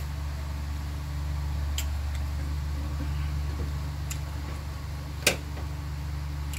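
A steady low hum with a few light clicks, the sharpest about five seconds in.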